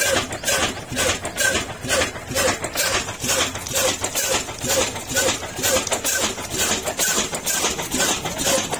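Ruston Hornsby single-cylinder horizontal diesel engine running steadily while it drives a flour mill through belts. It has an even beat of about two strokes a second.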